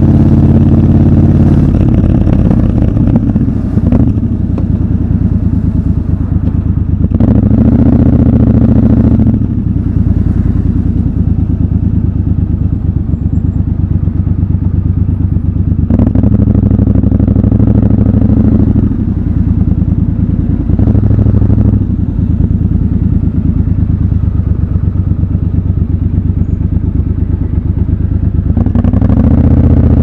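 Triumph Scrambler 1200 XC's 1200 cc parallel-twin engine heard from the rider's seat, running at low speed in traffic with several short pulls on the throttle and lower, quieter running between them.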